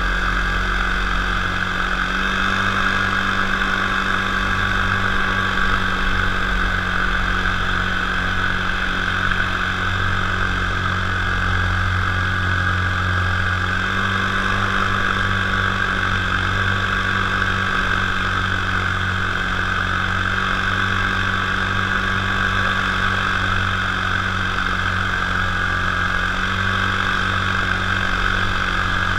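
Top80 single-cylinder two-stroke paramotor engine and propeller running steadily in flight, heard close up from the frame. The engine note shifts slightly about two seconds in and again about fourteen seconds in.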